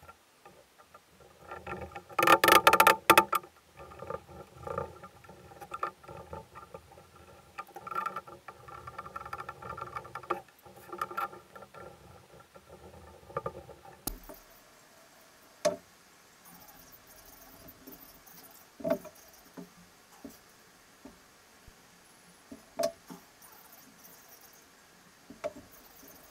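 Wooden rack parts and bar clamps being handled and tightened during a glue-up: scraping, rattling and knocking, loudest about two seconds in. After about fourteen seconds, only scattered light clicks and taps.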